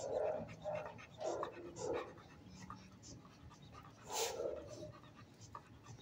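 A dog panting in short, quick breaths that sound like gasping for air, the way a dog pants to cool itself, with one louder burst about four seconds in.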